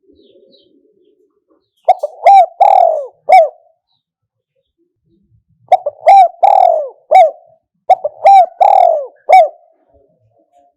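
Spotted dove cooing loudly: three phrases of four or five short, falling notes each, with a couple of seconds' pause between the first and second.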